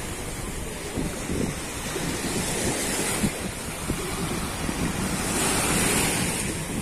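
Small waves breaking and washing up onto a fine-sand beach, a steady hiss of surf that swells about five seconds in, with wind buffeting the microphone.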